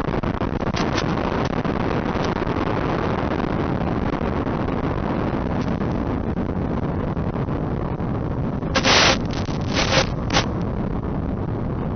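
Steady rushing wind and motor noise from a flying RC P-38 model airplane, picked up on board, with a few short loud bursts about nine and ten seconds in.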